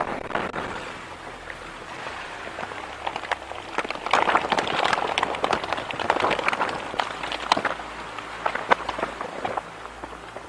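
Explosive eruption of Taal Volcano out of its crater lake: a dense rushing hiss thick with sharp crackles, building to its loudest about four seconds in and easing off toward the end.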